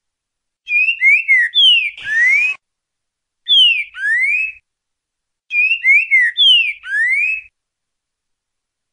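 Green-winged saltator (trinca-ferro) singing the 'boca mole ti-boi' song type: three short phrases of clear slurred whistles, each note sliding down or up, about a second apart. A brief scratchy noise comes about two seconds in, near the end of the first phrase.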